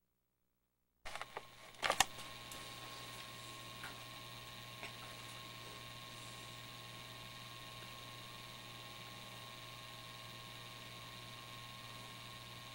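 A few sharp clicks and knocks of a camcorder being handled as recording begins, about a second in. Then a faint, steady electrical hum with hiss and a couple of small ticks.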